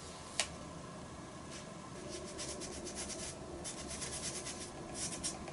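Cut-paper stencil templates being handled on drawing paper: one sharp tick about half a second in, then quick runs of dry rubbing and rustling of paper against paper.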